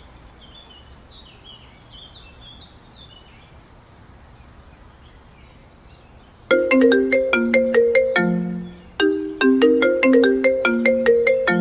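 Mobile phone ringtone: a bright melody of quick notes, played twice, starting about six and a half seconds in. Before it, faint bird chirps.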